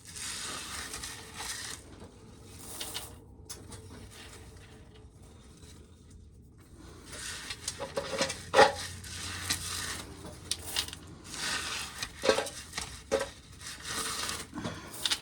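Dried corn being shelled: irregular rattling and scraping as kernels come off the cob, with sharp clicks and patters of kernels dropping. It goes quieter for a few seconds in the middle, then the clicks pick up again.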